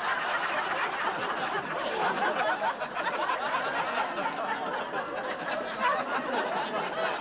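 A large audience laughing, one long sustained wave of laughter.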